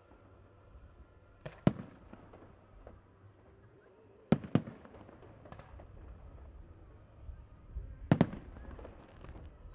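Fireworks salute shells bursting overhead: three pairs of sharp bangs, about a second and a half in, around four and a half seconds, and again near the end.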